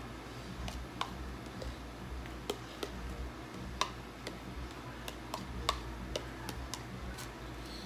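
Metal spoon clicking and scraping against a plastic bowl while scooping ground meat out onto tortilla chips: light, irregular clicks, about a dozen.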